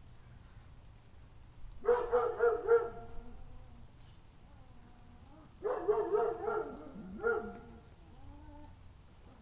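A dog barking in two bursts of several quick barks, the first about two seconds in and the second about six seconds in.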